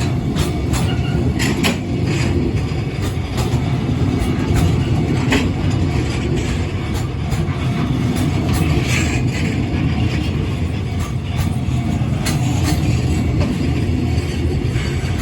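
Freight train rolling past, hauled by an EF210-300 electric locomotive: a steady low rumble with wheels clacking irregularly over the rail joints.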